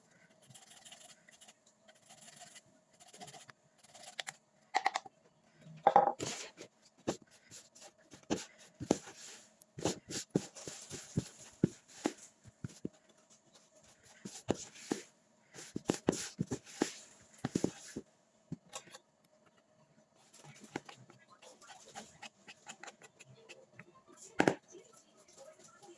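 Irregular knocks, clicks and scraping of things being handled during kitchen work, with the loudest knocks about six seconds in and near the end. A faint steady hum runs underneath.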